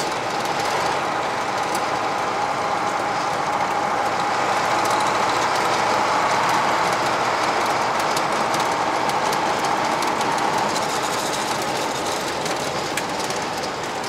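KAMAZ 5320 truck's V8 diesel engine running at highway speed, heard from inside the cab along with road noise and a constant clatter of the cab and body. It grows a little louder for a few seconds in the middle.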